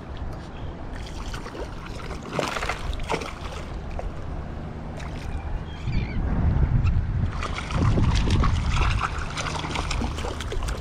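Water sloshing and splashing against a kayak's hull over a low steady hum, with scattered knocks and clicks. There are louder, rumbling stretches about six and eight seconds in.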